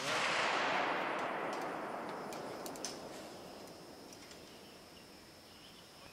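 The tail of a gunshot at an outdoor range: a hissing, rolling echo that fades away over about four seconds, with a faint click near the three-second mark.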